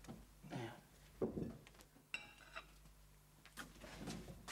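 Kitchen crockery and cutlery clinking and knocking as they are handled at a cupboard: a sharp knock about a second in, then a brief ringing clink of china or glass, with lighter knocks near the end.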